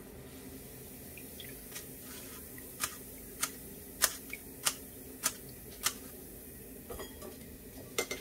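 Wire-mesh strainer being tapped over a wok of frying oil: six sharp, evenly spaced taps a little over half a second apart, starting about three seconds in, then a few lighter clicks near the end.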